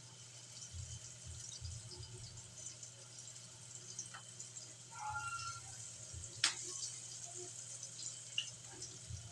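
Soft patting and rustling of a hand pressing wet chicken pieces into a plate of flour, over a low steady hum. A brief high squeak comes about five seconds in, and a single sharp click about six and a half seconds in.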